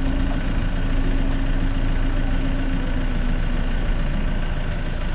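Safari bus engine running at idle, heard from inside the bus: a steady low rumble, with a humming tone that fades out about three seconds in.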